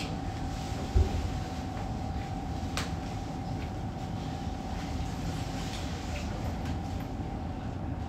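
Inside a Tokyo Metro 8000 series subway car: a steady hum of the train with a constant mid-pitched tone. A heavy thump comes about a second in and a sharp click near three seconds.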